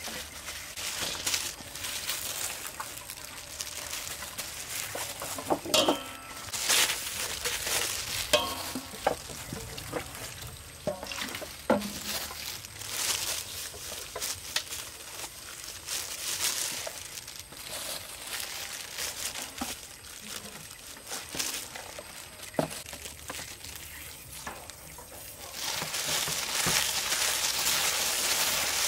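Gloved hands tossing and mixing sliced banana flower, shallots and chopped chili in a stainless steel bowl: wet rustling and squishing, with a few sharp knocks against the metal. The rustling gets louder and steadier near the end as the mixing picks up.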